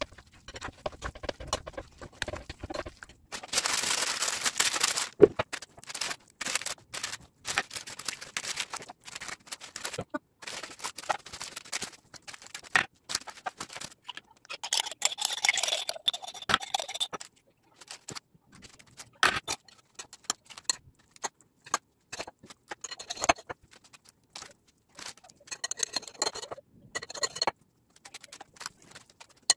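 A metal spoon stirring a wet oat-flake mixture in a glass bowl and spreading a crumbly oat mixture in a paper-lined baking tin: irregular scrapes, clicks and taps, with a longer, louder scraping about four seconds in.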